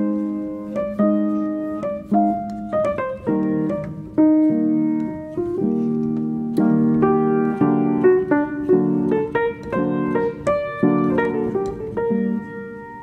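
Background piano music: single notes and chords struck one after another, each left to ring and fade.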